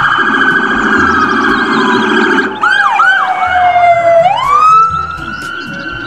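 Police car sirens from cruisers responding with lights. A long wail falls in pitch over a steady tone, quick yelp chirps come about two and a half seconds in, and then the wail sweeps back up and holds high.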